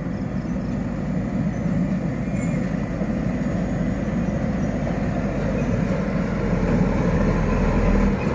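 Heavy diesel truck engine running steadily as a CAMC eight-wheeler approaches on a gravel road, growing louder toward the end as it draws near.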